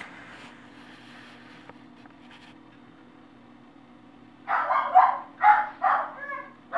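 A dog barking, about five barks in quick succession starting about four and a half seconds in, over a low steady hum. She barks like this when everybody leaves.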